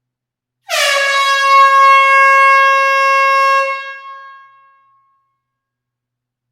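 One long horn blast: a single pitched tone that dips slightly right at the start, holds steady for about three seconds, then fades out over about a second.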